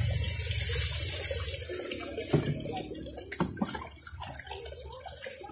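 Water poured from a plastic pitcher splashing over a wet dog's back for about the first second and a half, then softer splashing with a few sharp knocks as the pitcher is dipped back into the basin.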